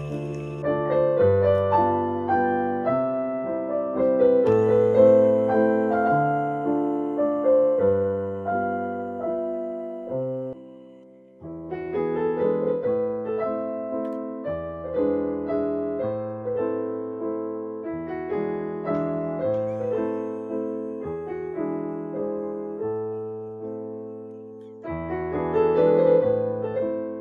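Background piano music, with a brief pause about eleven seconds in.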